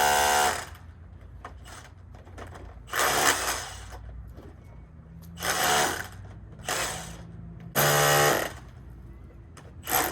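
A handheld power tool run in short bursts of half a second to a second, about six times, each with a whining motor note, with quieter pauses between.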